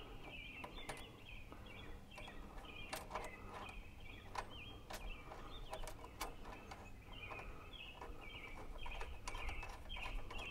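Faint, short bird chirps repeated over and over, with scattered light metallic clicks of washers and a nut being fitted by hand onto a tie rod end.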